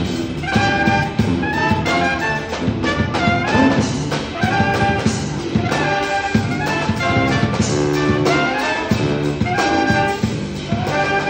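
Live brass band playing an upbeat jazzy tune: two trumpets and a saxophone over a drum kit with cymbals, with drum hits at a steady beat and a low bass line under the horns.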